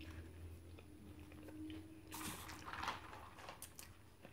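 Faint chewing, then about two seconds in, a couple of short noisy bursts as a fountain soda is sipped through a straw from a paper cup.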